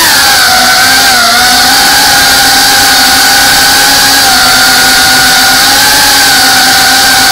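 FPV quadcopter's electric motors and propellers whining loudly, heard from the camera on board the drone. The pitch dips and recovers in the first second or so as the throttle changes, then holds fairly steady with small wavers as it cruises.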